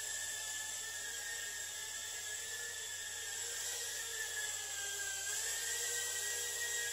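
R010 mini quadcopter drone's motors and propellers whining steadily in flight. The pitch wavers slightly, dipping briefly about five seconds in and then rising again.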